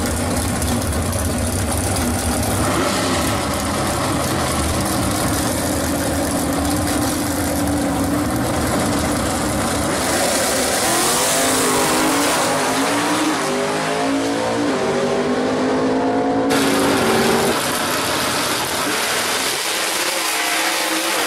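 Drag-racing muscle-car engines, a Ford Mustang and a 1965 Pontiac GTO, running hard at the starting line. About halfway in the engine pitch climbs and drops back in repeated steps, as at a launch with gear changes. Near the end the sound changes abruptly.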